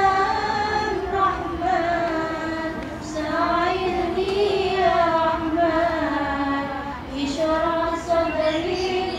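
Girls' voices singing an Islamic sholawat (devotional song to the Prophet), long held melodic lines with wavering, ornamented pitch.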